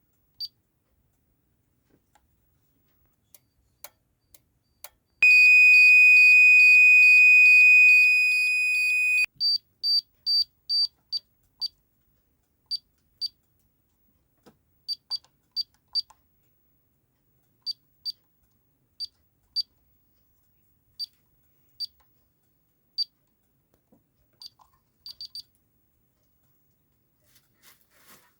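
Fire alarm giving a loud, steady, high-pitched electronic tone for about four seconds before it cuts off. After that comes a string of short high beeps at uneven intervals, some in quick runs of three or four.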